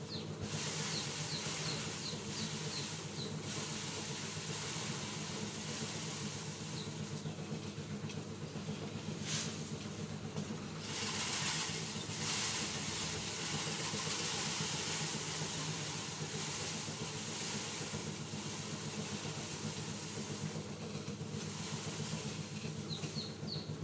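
A steady machine drone with a strong hiss, an engine or motor running without a break, with a few short high bird chirps in the first few seconds.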